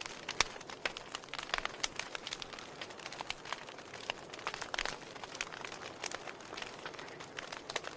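Wood fire burning with a steady soft hiss and irregular crackles and pops, one sharp snap about half a second in.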